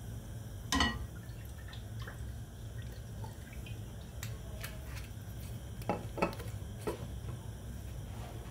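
Olive oil poured from a bottle into an empty frying pan, dripping, with a sharp click of the bottle about a second in and a few lighter knocks later, over a steady low hum.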